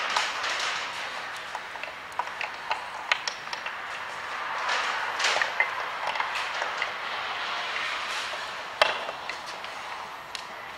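Metal gears clicking and clinking against each other and the shafts as they are wiggled into line inside a Hobart A200 mixer gearbox, over rustling handling noise, with one louder click near the end.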